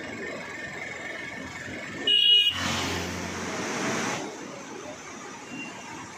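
A vehicle horn sounds once, briefly, about two seconds in, followed by a louder rush of noise for under two seconds. Underneath runs the steady rushing of a swollen, silt-laden mountain river.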